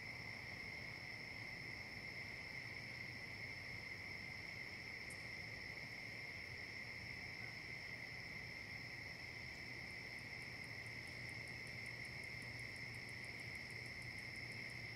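Faint, steady high-pitched electronic whine from a trail camera's own circuitry, holding two unchanging pitches over a low hum. A run of fast, faint high ticks joins it about two-thirds of the way in.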